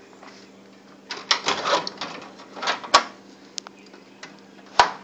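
Scrapes, knocks and a few sharp clicks of someone moving about and handling things, over a steady low hum. The scrapes bunch together about a second in, and the clicks are scattered near the end.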